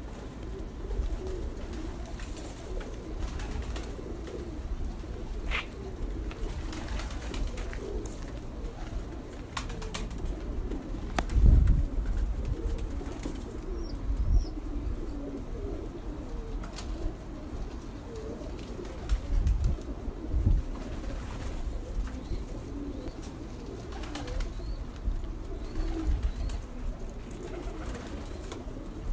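Pigeons cooing, many low coos overlapping, with a few dull thumps now and then; the loudest thump comes about eleven seconds in.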